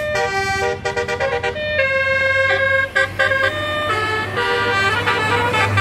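A bus's 'telolet' multi-tone horn playing a tune: several horn tones sounding together and jumping between pitches in quick steps. An engine runs low underneath.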